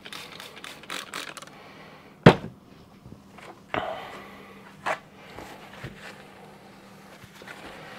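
Hands handling things on a wooden tabletop: rustling at first, one sharp knock about two seconds in, then a couple of softer knocks and the quiet rub of a paper towel wiping the disc, over a faint steady hum.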